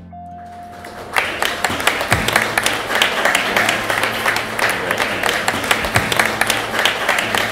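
Audience applauding, the clapping starting about a second in after a brief quiet moment and keeping going steadily.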